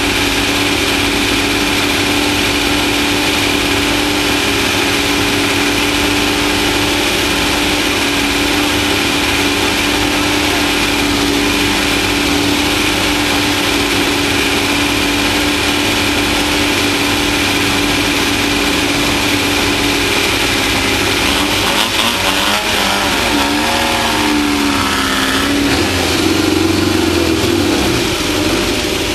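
Off-road race vehicle's engine running at a steady pitch for about twenty seconds, then rising and falling in pitch as the throttle changes near the end, over a constant wash of driving noise.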